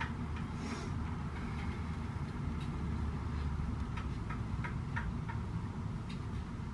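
Scattered light clicks and taps of steps on a hard floor, a few close together about four to five seconds in, over a steady low room hum.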